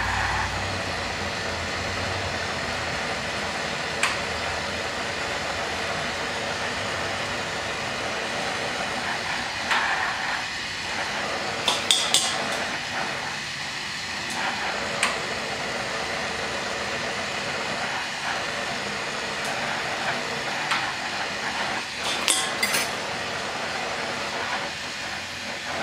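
A lampworking bench torch burning with a steady hiss as glass is heated in the flame, with a few light clinks of glass rods being handled, a pair about halfway through and another pair near the end.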